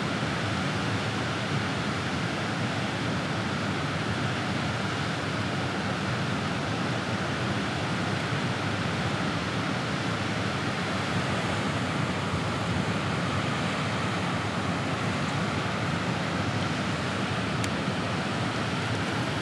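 Steady rush of water pouring through a dam's open spillway gates and churning in the turbulent outflow below.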